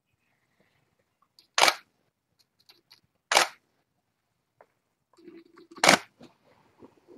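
Camera shutter clicking three times, a second and a half to two and a half seconds apart.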